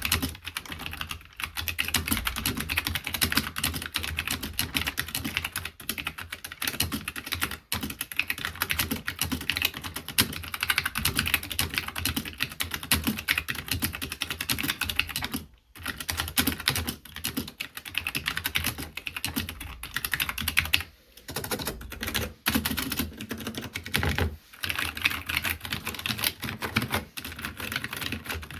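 Fast typing on a custom 60% mechanical keyboard with Hi Tek 725 tactile switches (SI grey) in a tray-mounted AEK60 case, over an aluminium plate with Harvest keycaps. A steady stream of rapid keystrokes runs with a few short pauses, and the typing is recorded on an iPhone.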